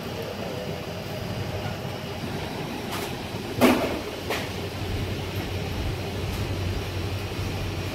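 Steady low background rumble and hum of a small shop, broken about three and a half seconds in by one sharp knock and a lighter click just after.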